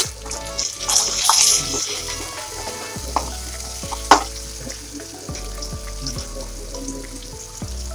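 Onion-tomato tadka frying in oil in a kadhai while a steel ladle stirs it. The sizzle swells about a second in, and the ladle gives one sharp clink against the pan about four seconds in.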